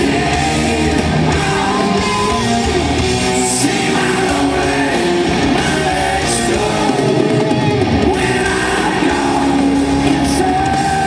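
Live hard rock band playing with electric guitar while the lead singer sings into a microphone, heard from the audience in a large hall.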